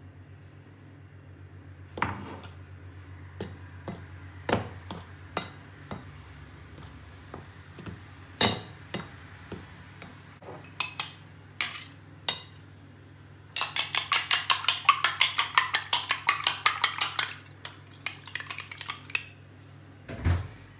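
A metal spoon stirring flour in a mixing bowl, clinking against its side: scattered single taps, then a fast run of clinks at about seven a second for several seconds past the middle, and a dull knock near the end.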